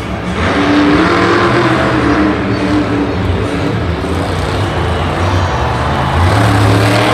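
Monster truck's supercharged big-block V8 revving hard under load as the truck spins a donut balanced on two wheels. The engine note climbs just after the start and again about six seconds in.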